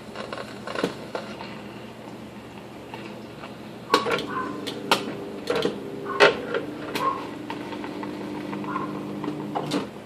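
Stepper motors humming as a robot arm swings a coffee filter basket over and back, with a run of sharp knocks and clacks from about four seconds in as the upturned basket dumps its grounds.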